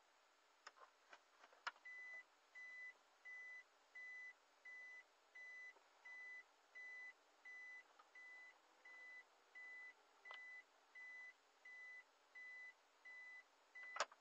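A car's reverse-gear warning beep sounding inside the cabin: a single high beep repeating evenly, about one and a half times a second, while the car backs up. A few clicks come just before the beeping starts about two seconds in, and a sharp click near the end as it stops.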